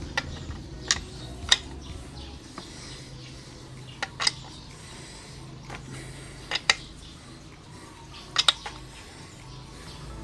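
Sharp metallic clinks of hand tools and engine parts, about ten in all, some in quick pairs, as the intake manifold is fitted to a Yamaha DT125 two-stroke engine.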